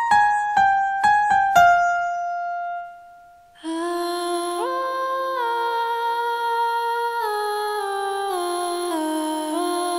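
Kontakt sampled piano playing a few single notes stepping down in pitch, the last one left to ring out. After a short pause, a sampled female solo voice library sings sustained wordless chords that move from one held chord to the next.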